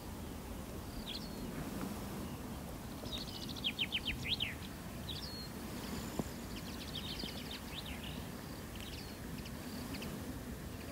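Outdoor ambience of songbirds in the trees: scattered short chirps and one quick run of descending notes about four seconds in, over a steady background hiss, with a single sharp click about six seconds in.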